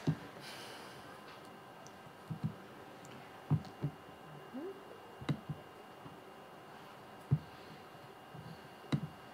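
Quiet room tone with several soft, scattered knocks and clicks, the sharpest about three and a half and seven seconds in, over a faint steady high whine.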